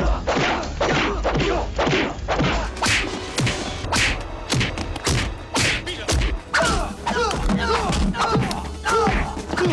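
Film fight-scene punch and kick sound effects: a quick run of thuds and smacks, about two or three a second.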